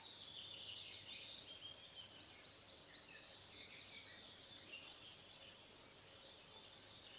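Faint wild birds singing: scattered high chirps and calls over a quiet background.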